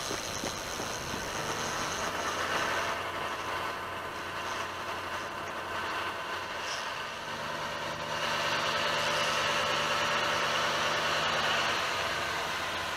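An engine idling steadily, its low hum growing louder about eight seconds in.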